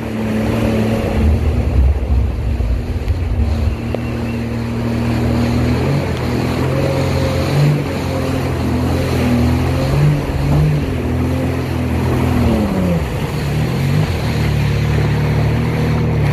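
Jet ski engine running at speed, a steady drone over the rush of water and spray. About twelve seconds in, the engine note drops as the throttle eases, then steadies again.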